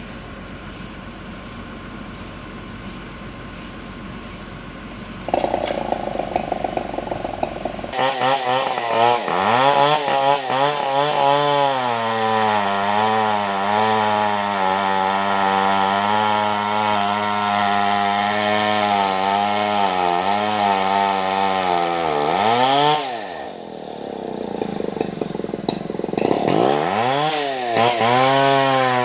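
A low steady engine rumble, then a two-stroke chainsaw comes in about five seconds in and cuts into a log, its engine note wavering in pitch under load. Near the end the saw drops off briefly and revs back up.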